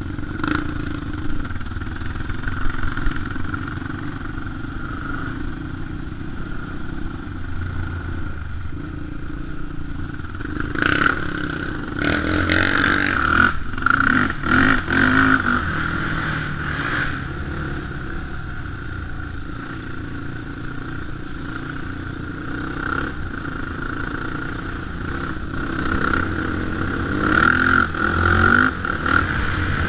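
A 450 cc sport quad's single-cylinder four-stroke engine running as it is ridden along a rough dirt trail, with the throttle opened harder in two stretches, about a third of the way in and again near the end, amid rattles and knocks from the bumpy ground.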